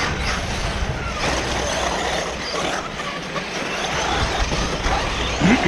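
Radio-controlled off-road race cars running on a dirt track, their motors whining and gliding up and down in pitch as they speed up and slow down.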